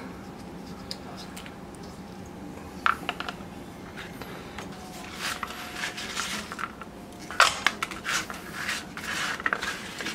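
Hands handling fresh vegetables on a plastic cutting board: scattered soft clicks, taps and rustles as snow pea pods are pulled apart and pieces are gathered on the board, over a faint steady room hum.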